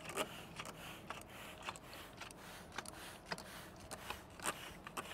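Plastic trigger spray bottle (Zep professional sprayer) squeezed over and over, each pull giving a short hiss of spray, about two a second.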